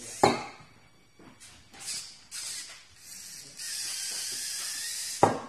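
VEX robot arm's motors and gearing running in short spurts, a high whirring hiss, then a steadier run of about a second and a half as the arm moves. A sharp knock about a quarter second in and another near the end are the loudest sounds.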